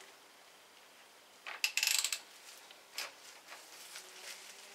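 Ratchet wrench clicking in a short rapid run as the fork's top cap is turned, followed a second later by a single sharp click.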